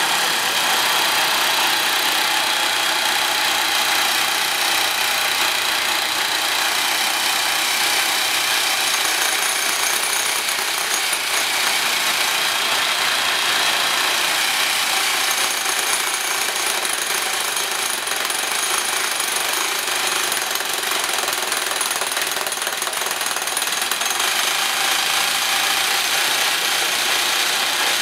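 Twin-boom rock drilling rig drilling into rock: a loud, steady hammering drill noise with no let-up.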